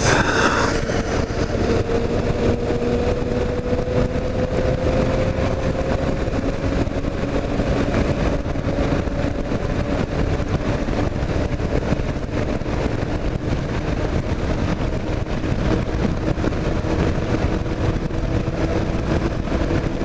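Kawasaki KLR 650 single-cylinder engine running at a steady cruise, heard under a steady rush of wind and road noise, its note climbing slowly as the bike gathers speed.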